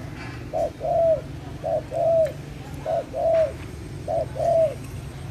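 A bird calling a repeated two-note phrase, a short note followed by a longer one that rises and falls. The phrase comes four times, about once a second.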